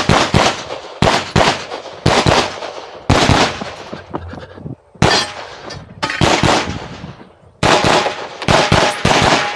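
9mm pistol fire from a CZ Shadow 2 at close range: a run of sharp shots in quick groups, with brief pauses between the groups.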